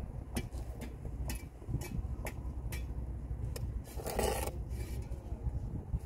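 Steel brick trowel working wet mortar on a brick course: a series of short, sharp taps and clicks as the blade meets the bricks, then a longer scrape about four seconds in as mortar is spread along the top of the bricks. A low steady rumble lies beneath.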